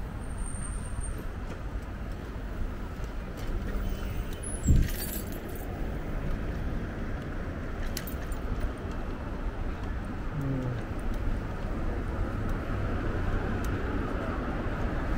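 Steady road and wind noise from riding an electric bike along a city street, with scattered small clicks and a single sharp knock about five seconds in.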